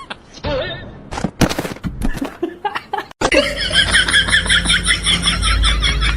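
Someone laughing in rapid, repeated bursts from about three seconds in, after a few seconds of scattered short knocks and voice sounds.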